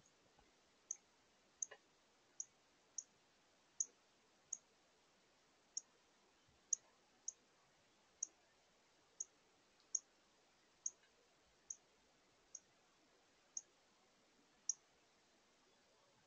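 Northern cardinal giving sharp, high chip calls, about one a second at uneven intervals, over a quiet background.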